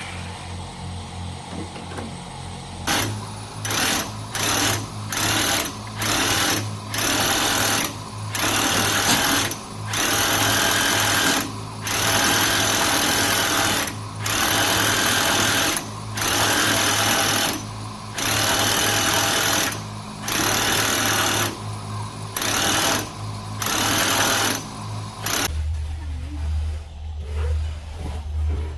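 Water sprayer used for washing down a chicken house: a spray hisses in repeated bursts, each from a fraction of a second to over a second long, switched on and off over a steady motor hum.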